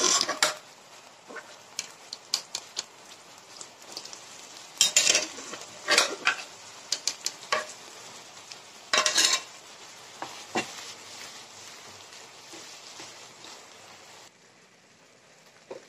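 Masala gravy sizzling in a non-stick frying pan while cooked green peas are tipped in from a steel container. The steel clinks and knocks against the pan several times, and a wooden spatula scrapes and stirs the peas into the gravy. The sizzle drops away near the end.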